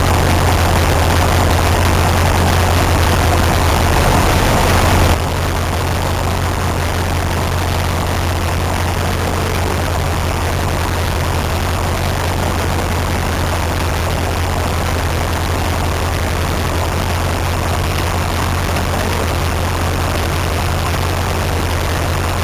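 A heavy engine running steadily with a deep, even hum. About five seconds in the sound drops abruptly to a slightly quieter, duller level and then carries on steadily.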